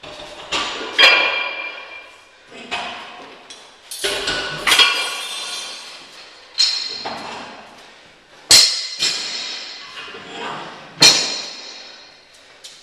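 Metal gym weight plates clanking against each other and against metal as they are handled: a string of sharp clanks, each ringing briefly, loudest at about a second, eight and a half and eleven seconds in.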